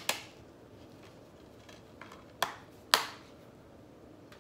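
Plastic DVD case being handled: three sharp clicks and knocks, one at the start, one about two and a half seconds in and the loudest about three seconds in.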